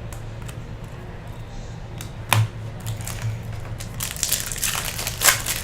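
Foil wrapper of a trading card pack being torn open and crinkled, with a sharp snap about two seconds in and a burst of crackling rustle near the end.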